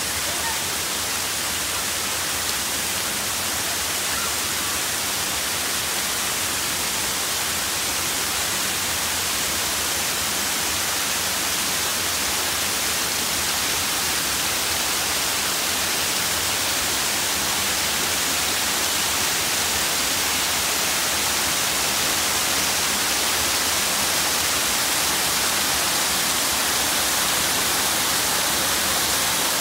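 Waterfall pouring over stepped rock ledges: a steady hiss of falling water that grows gradually louder toward the end.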